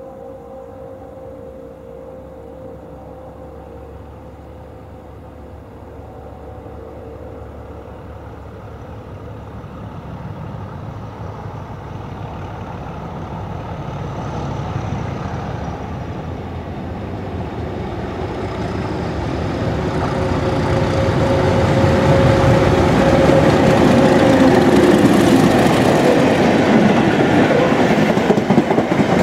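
Locomotive-hauled train approaching and passing through the station, growing steadily louder as it nears, with wheels clicking over rail joints near the end.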